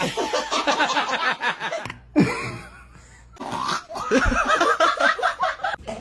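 Laughter in two long, rapidly pulsing bursts. About two seconds in they are broken by a single short, sharp sound, a baby's hiccup.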